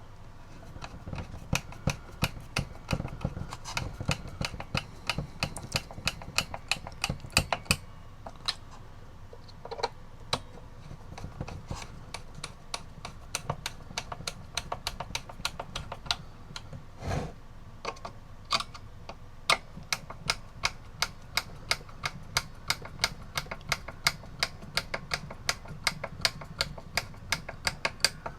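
Small sharp metallic clicks and ticks from a cuckoo clock movement being handled and worked on, dense at first and settling toward about two a second near the end, with one duller knock about halfway through.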